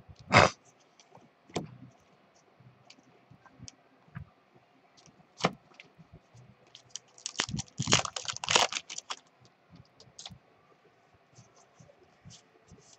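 Baseball trading cards being handled: scattered clicks and slides of card stock, with a sharp snap just after the start. About seven to nine seconds in comes a dense run of crinkling and tearing as a card pack's wrapper is torn open.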